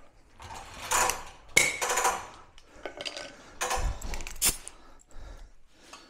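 Metal clinks, knocks and scrapes of shop tools and an air chuck being handled: a few separate knocks, the sharpest about one and a half seconds in, and a duller low knock about four seconds in.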